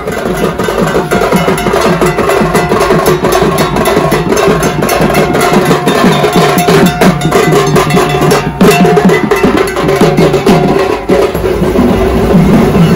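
Street drummers beating dhak barrel drums in a fast, driving rhythm, with a metal percussion piece clanging along on every beat.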